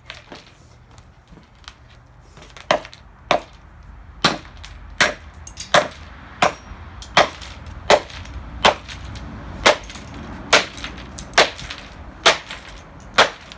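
Hammer blows smashing the plastic pieces of an alarm clock radio: a few faint knocks, then from about three seconds in a steady run of around fourteen sharp strikes, roughly one a second.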